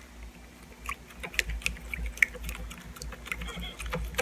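A plastic spoon stirring a thin glue-and-water mix in a bowl, knocking and scraping against the bowl's side in light, irregular clicks, a few a second.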